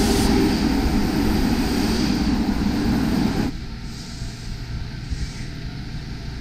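Subway train running along the platform, a loud rumble and rush of wheels on rails that cuts off about three and a half seconds in, leaving a quieter steady background.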